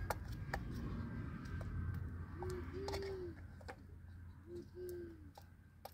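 Low cooing bird calls, two pairs of short calls, over a steady low rumble and scattered sharp clicks.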